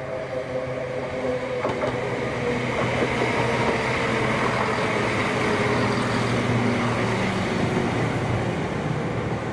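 Diesel train going through the station: a steady engine drone and the rumble of wheels on the rails, growing louder toward the middle and easing slightly near the end.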